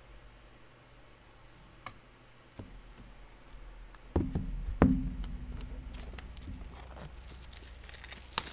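Trading cards and packs being handled on a table: a few faint clicks, then two sharp thumps about half a second apart a little past halfway, followed by light rustling.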